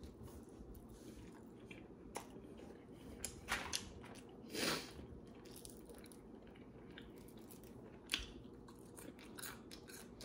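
A person chewing a bite of cheesesteak sandwich and curly fries close to the microphone: faint, with scattered wet mouth clicks and smacks and one louder mouth sound about four and a half seconds in.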